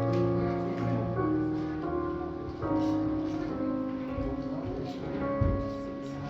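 Slow instrumental music on a keyboard instrument, held chords changing every second or so.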